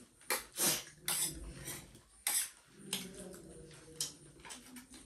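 Mukbang eating noises: a handful of short, sharp crunches and clinks spread through the few seconds, from crisp pani puri and chatpate being eaten off plates with spoons.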